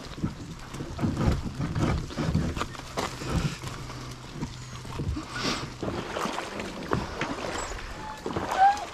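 Kayak being pulled along a wet dirt track: a steady low rumble from the hull with irregular knocks and scrapes, easing off after about six seconds.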